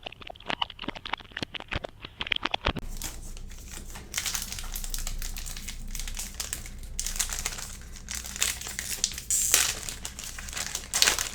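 Foil trading-card pack wrapper crinkling as it is handled and opened, starting with a quick run of small clicks.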